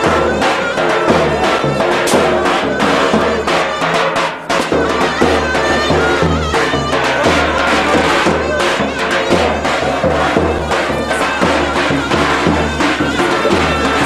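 Live Turkish folk music: a davul bass drum keeps a steady beat under a loud, shrill reed wind instrument playing the melody.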